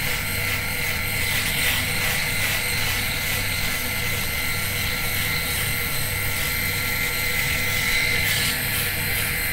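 Xiaomi Mijia S300 three-head rotary electric shaver running while shaving two-day stubble dry: a steady motor hum with a high-pitched whine.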